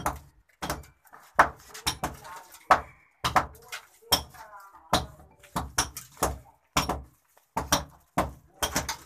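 A continuous run of sharp knocks, about two a second and not quite evenly spaced, like blows striking a hard surface.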